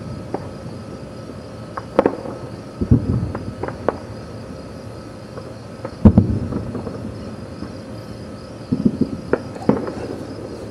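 Distant aerial firework shells bursting in a series of booms with rumbling tails, the loudest about six seconds in and a quick run of several near the end. Crickets chirp steadily underneath.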